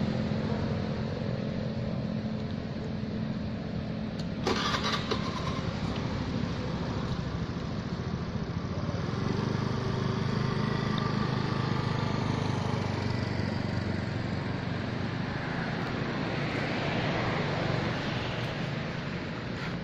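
An engine running steadily in the background, with a sharp click about four and a half seconds in.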